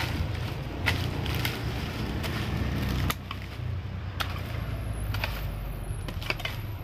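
Hand hoe chopping and scraping into soil and rotting palm fronds, with irregular strikes about once a second over a low steady rumble.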